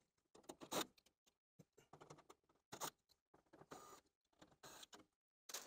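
Faint scattered clicks and small rattles, a dozen or so short knocks spread irregularly: a cordless drill/driver and screws being handled against the unit heater's sheet-metal front as the faceplate screws come out.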